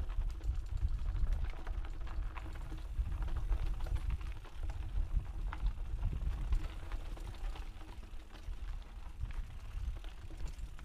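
Mountain bike descending a rough dirt trail, heard from a GoPro on the rider: a steady low rumble of wind and tyres with many quick clicks and rattles from the bike over the rough ground.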